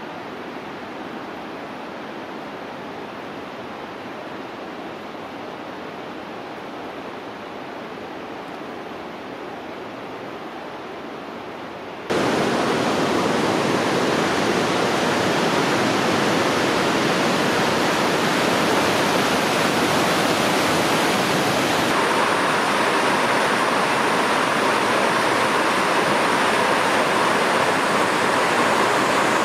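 Lynn Creek's waterfall and rapids rushing steadily. The rush is fainter at first, jumps abruptly louder about twelve seconds in, and takes on more hiss about ten seconds later.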